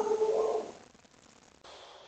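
A single drawn-out animal call lasting under a second at the start, then faint background hiss.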